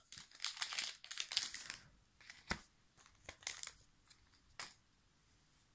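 Foil trading-card booster pack wrapper crinkling as it is torn and pulled open. Then a few separate short clicks as the cards are handled.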